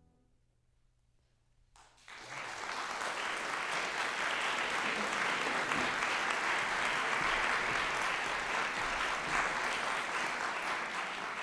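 After a quiet opening, an audience starts applauding about two seconds in and keeps clapping steadily.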